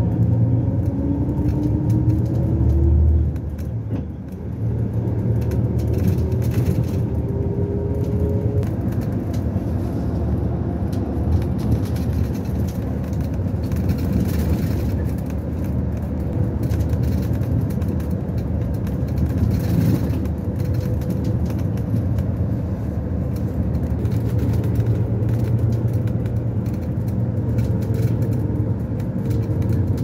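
Road vehicle in motion heard from inside, a steady low rumble of engine and tyre noise, with a faint whine that rises in pitch over the first few seconds.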